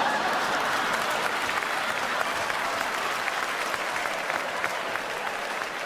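Theatre audience applauding, loudest at the start and slowly easing off.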